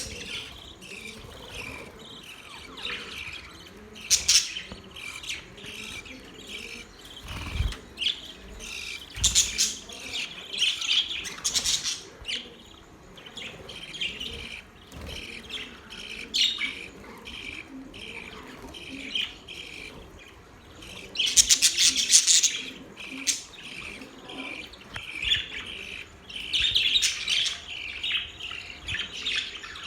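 Several budgerigars chirping and chattering without pause, with louder bursts of rapid calls now and then, the loudest about two-thirds of the way through.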